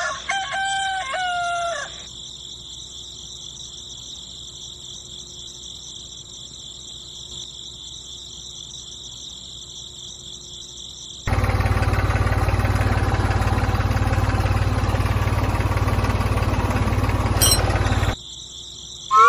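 A rooster crows at the start over a steady, high chirring of insects. About eleven seconds in, a miniature DIY toy tractor's small electric motor starts running, a loud, even whirr for about seven seconds that cuts off suddenly.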